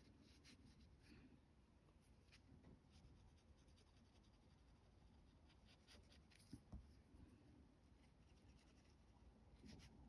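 Faint scratching of a Caran d'Ache Neocolor II wax crayon drawing short strokes on rough-textured cotton rag paper, with two soft taps about six and a half seconds in.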